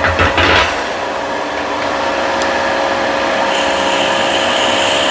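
Vicmarc VL300 wood lathe running steadily while a drill bit bores a center hole into the spinning wood, with a short burst of cutting noise at the start and a higher hiss joining past the middle.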